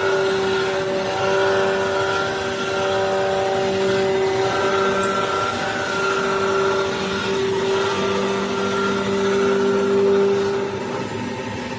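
A motor-driven machine running steadily with a constant whine whose loudness swells and eases a little over the seconds.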